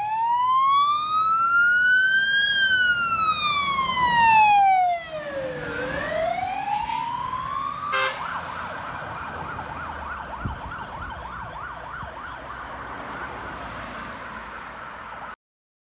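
Fire truck siren on a rural fire service pumper: a slow wail rising and falling in pitch, switching about halfway to a fast yelp. Engine and road noise run underneath, and the sound cuts off just before the end.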